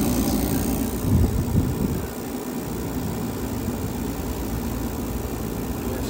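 Steady low mechanical rumble of an HVAC unit's motor running, with a couple of handling knocks about a second in; it eases to a quieter steady hum about two seconds in.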